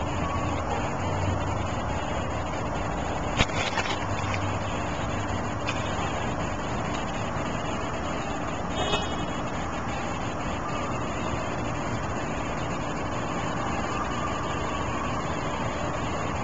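Steady low background rumble and hum. A single sharp click comes about three and a half seconds in, and a brief high pitched chirp or squeak comes near nine seconds.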